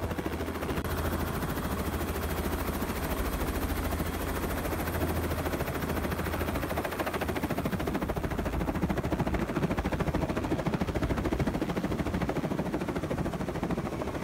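Robinson R44 helicopter running, a steady fast rotor chop over engine noise.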